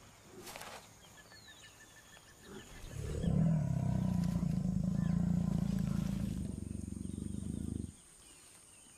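Jaguar growling: a single low, steady snarl starts about three seconds in, lasts about five seconds, then stops abruptly. Before it, only a quiet background with faint chirps.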